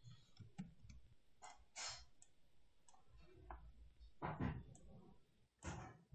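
Faint computer mouse clicks, a handful at irregular intervals, over quiet room tone, as anchor points and handles are clicked and dragged.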